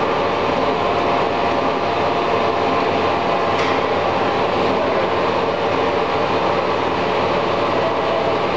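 Monarch 36NN extra-heavy-duty engine lathe running under power, its 25 HP main motor and headstock drive giving a loud, steady hum with several layered whining tones.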